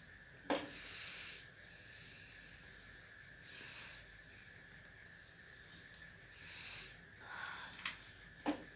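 A cricket chirping steadily in an even rhythm, about four or five chirps a second, with a couple of brief soft noises about half a second in and near the end.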